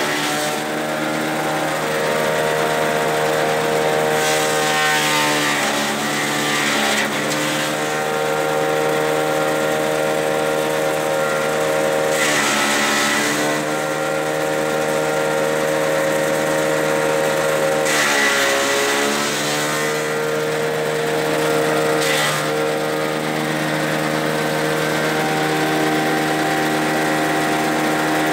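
Grass chopper driven by a small petrol engine, running steadily while grass stalks are fed through it. Several times the engine briefly drops in pitch and recovers as the blades take a load of stalks, each with a burst of rushing chopping noise.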